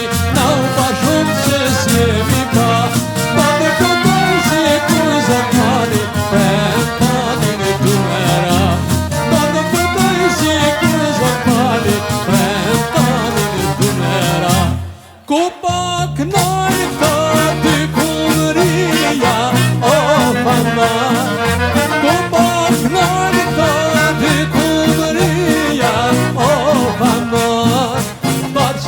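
Albanian folk song: singing over instruments with a steady, driving beat. The music drops out for about a second halfway through, then carries on.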